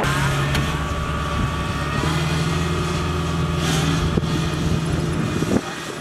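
Kubota DC-70 combine harvester's diesel engine running steadily as the machine travels on its rubber tracks, with a few light knocks and rattles from the machinery.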